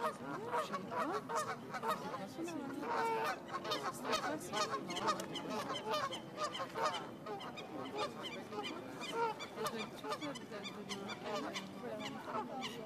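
A flock of Canada geese honking, many short calls overlapping one another without a break.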